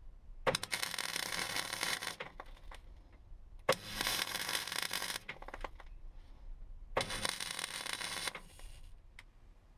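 MIG welder laying three short bursts of weld, each about a second and a half long with a pause between, tacking a steel repair panel into a car body's B post.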